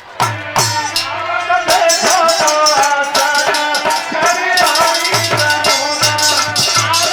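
Instrumental passage of a devotional bhajan: a wavering melody over a steady drum beat with rattling, shaker-like percussion.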